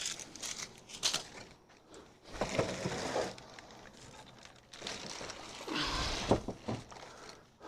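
Packaging being handled during an unboxing: two spells of rustling, the second ending in a dull thud, with a light knock about a second in.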